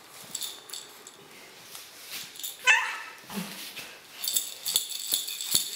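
A baby's short, high squeal about halfway through, then a light rattling and rustling in the last second and a half as she handles a soft toy ball.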